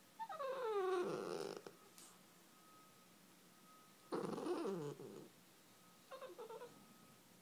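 Shih Tzu puppy vocalizing: three pitched calls, each sliding down in pitch. The first two are longer and the third is short, near the end.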